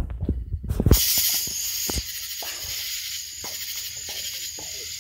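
A lit firework hissing steadily as it burns, starting about a second in, with faint voices behind it.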